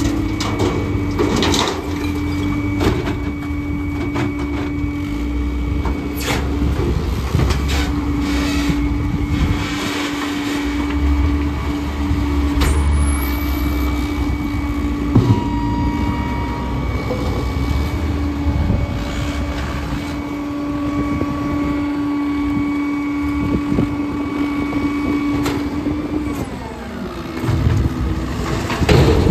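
Rear-loader garbage truck running with its hydraulics engaged: a low engine rumble under a steady hum that holds, breaks off briefly, then slides down and stops near the end as the dumpster tipping winds down. Scattered clunks and knocks of debris falling into the hopper and off the dumpster.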